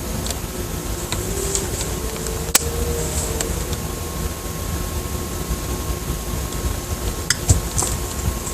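A steady, machine-like droning rumble with no clear source, which the recordist hears as constant engine noise filling the sky. A faint steady whine joins about three and a half seconds in, and a few sharp clicks sound near the middle and near the end.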